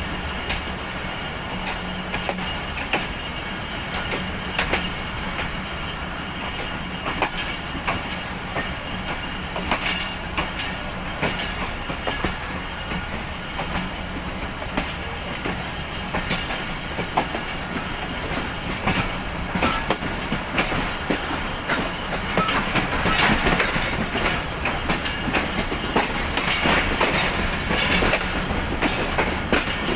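Wheels of a Pakistan Railways passenger coach clattering over rail joints and points at slow speed as the train pulls into a station, over a steady low hum. The clatter grows louder and harsher about two-thirds of the way in.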